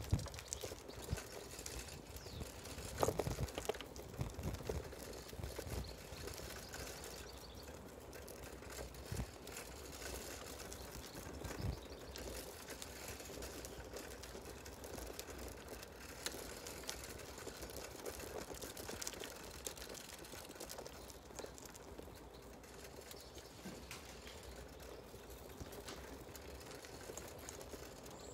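Quiet outdoor street ambience with soft footsteps and low handling thumps, most frequent in the first dozen seconds.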